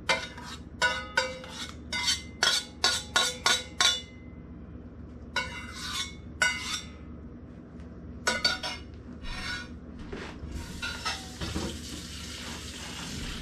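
A spatula scraping and clinking against a stainless steel saucepan as SpaghettiOs are scraped out into a ceramic bowl: a quick run of sharp, ringing clinks, then a few more scrapes and knocks. A steady hiss takes over for the last few seconds.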